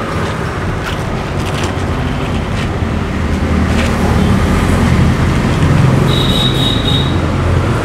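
Low engine rumble of a road vehicle, growing louder as it passes close by, with a brief high-pitched tone near the end.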